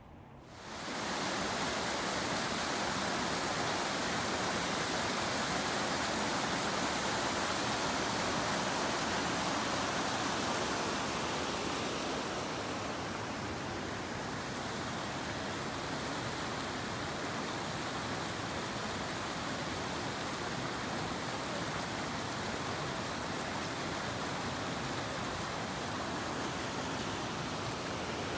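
Mountain stream rushing over boulders and gravel: a steady hiss of white water. It turns slightly softer and duller from about twelve seconds in.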